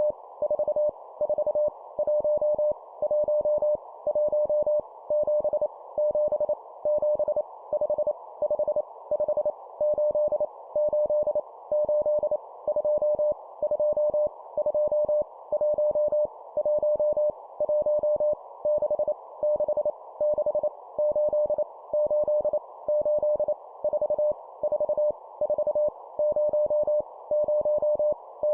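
Morse code (CW) tone near 600 Hz keyed on and off at 25 words per minute, sending random number groups for copying practice, over a steady hiss.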